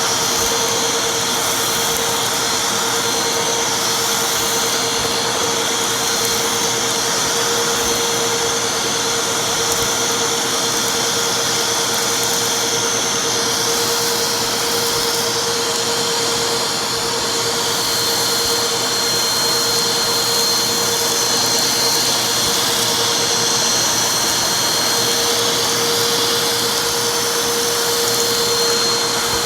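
Vacuum cleaner running steadily, a constant rushing noise with a steady whine.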